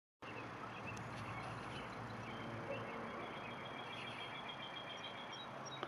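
Quiet outdoor ambience: a steady hiss under a faint low hum of a distant engine, with faint high chirping in the middle. It starts after a brief silent gap at an edit cut.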